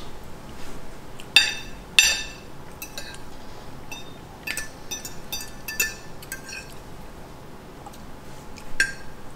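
Cutlery clinking against dishware while eating: two sharp ringing clinks about a second and a half in, a run of lighter clinks a few seconds later, and one more near the end.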